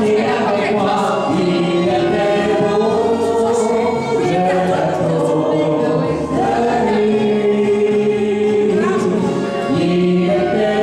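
A man and a woman singing a French song as a karaoke duet into microphones over a backing track, with long held notes.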